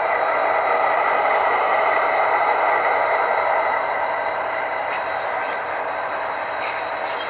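Model diesel locomotives running on a model railroad layout: a steady mechanical drone, easing slightly about halfway through, with a couple of faint clicks near the end.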